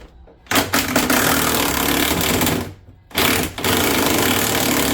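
Impact wrench hammering at a bolt in bursts: a run of about two seconds, a short blip, then a longer steady run.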